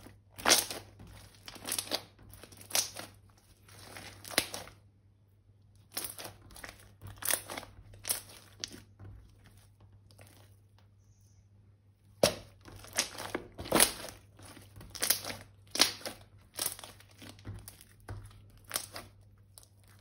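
Purple slime with confetti sprinkles being squeezed, kneaded and stretched by hand, giving clusters of short crackling, crinkly squishes, with pauses about five seconds in and again from about nine to twelve seconds in.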